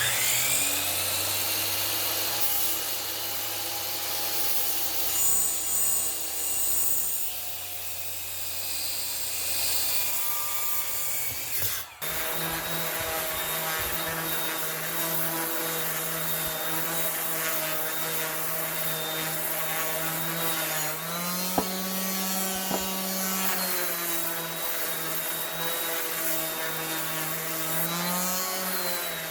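Motor-driven machinery running steadily, its pitch rising as it speeds up at the start. After an abrupt change about twelve seconds in, a machine runs on whose speed rises and falls back twice.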